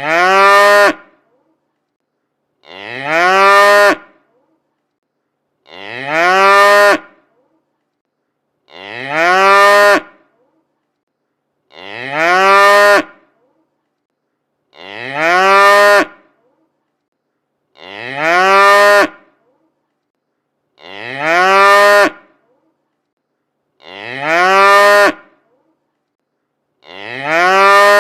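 A domestic cow mooing: the same short moo, rising and then holding its pitch, repeats exactly every three seconds, with complete silence between calls.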